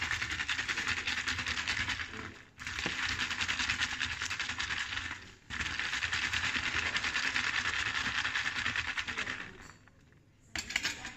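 Ice rattling and scraping in a tall plastic cup as a sparkling-water drink is stirred, in three long bouts with short breaks, stopping near the end apart from one brief rattle.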